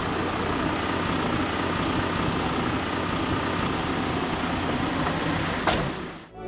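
Minibus engine running steadily with a low hum, with a single sharp click near the end before the sound fades out.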